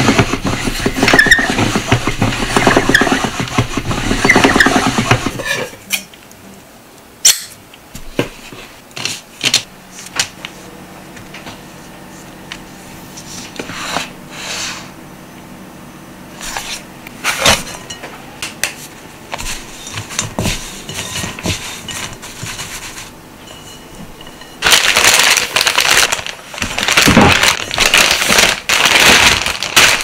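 Hand-cranked noodle machine running for about the first five seconds, its cutter rollers clattering as a dough sheet is cut into flat noodles. Then a quieter stretch of handling with scattered clicks and taps as the cut noodles are laid out on a metal tray. Near the end, a plastic zip-top bag crinkling loudly as the noodles are packed into it.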